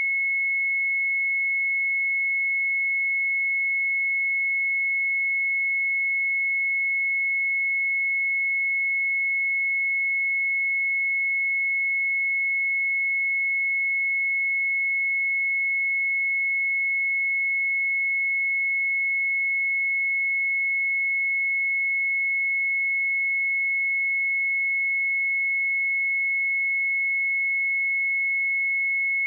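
Pure 2185 Hz sine-wave test tone, held steady at one pitch and level with nothing else.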